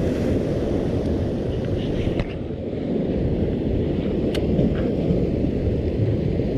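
Steady low rumble of wind and water on an action camera's microphone, with a couple of faint clicks.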